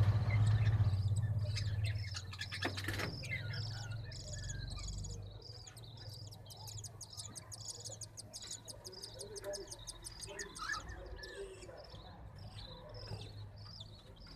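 Many small cage birds chirping and twittering, with a fast run of repeated high chirps in the middle, over a low hum that is loudest in the first couple of seconds.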